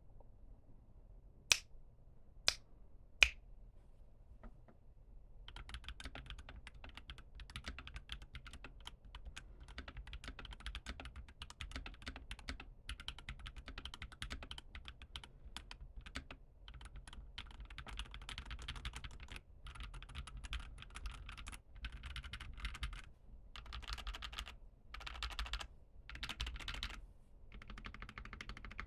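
Typing on an Idobao ID80 mechanical keyboard in a clear crystal case, fitted with Holy Panda tactile switches and GMK Striker keycaps. Three sharp, loud clacks come one by one in the first few seconds, then steady runs of typing with short pauses from about five seconds in.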